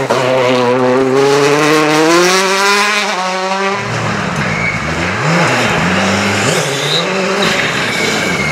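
Two R5 rally cars on gravel, one after the other. A Peugeot 208 T16's turbocharged four-cylinder accelerates hard, its pitch rising steadily. After an abrupt switch about four seconds in, a Ford Fiesta R5 revs up and down through quick gear changes over a constant rush of tyres on loose gravel.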